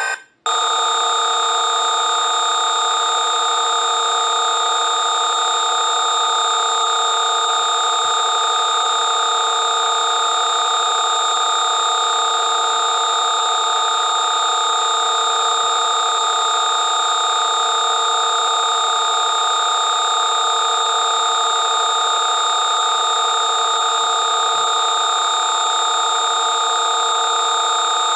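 Synthesized sound-healing 'matrix' program: a chord of many steady electronic tones, low and high, held without change. It cuts out for a moment just after the start, where one tone chord gives way to another.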